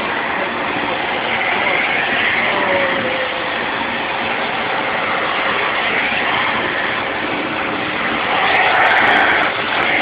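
Vacuum cleaner running steadily, its suction nozzle moving over a cat's fur, getting a little louder near the end.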